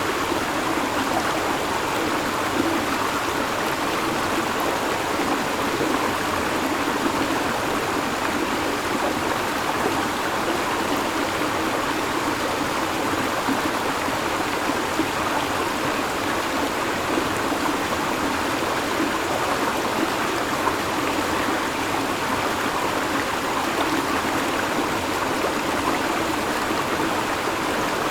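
A river or stream flowing steadily over rocks, a constant rushing babble of water.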